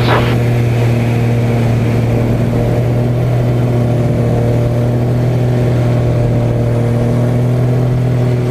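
Extra 300 aerobatic plane's piston engine and propeller running at a steady, even drone through a tumbling Lomcevak manoeuvre.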